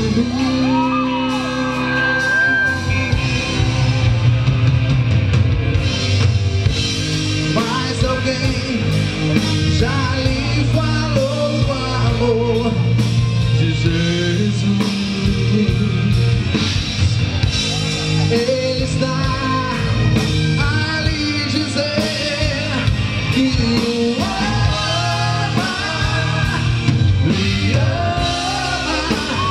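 Live pop-rock band performing: a male lead singer sings over a drum kit and keyboards, amplified through a stage sound system.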